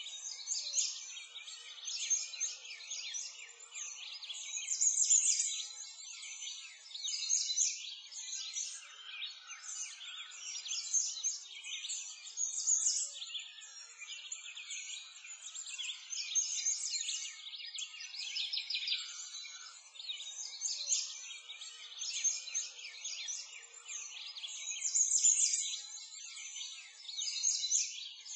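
Dense chorus of many small birds chirping and twittering, high-pitched and continuous, swelling and easing every couple of seconds.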